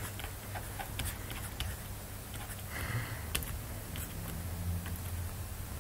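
Faint irregular ticks and a brief light scratch from a stylus on a pen tablet as handwriting is written, over a low steady hum.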